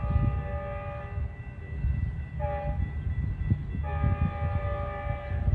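Multi-chime horn of an approaching Metrolink commuter train sounding long, short, long: the end of the standard long-long-short-long grade-crossing warning.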